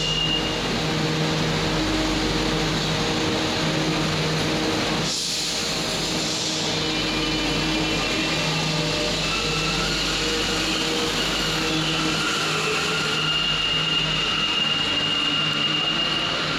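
Santiago Metro Line 2 train running, a steady rumble with whining motor tones. A brief hiss comes about five seconds in, and a high steady whine comes near the end.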